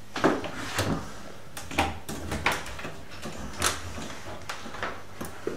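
Metal letterbox tool (UltiMATE LetterBOX tool) being moved through a door's letterbox, giving irregular knocks, clicks and rattles as it shifts against the letterbox and door, about seven in all.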